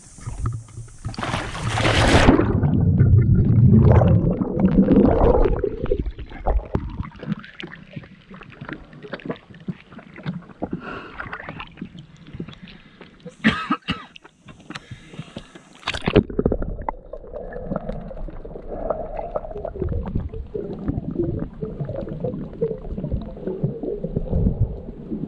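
Waterproof camera handled on deck and then taken underwater while snorkelling. Loud handling and wind noise at first, then from about two-thirds of the way through a steady muffled sloshing and bubbling of water against the camera.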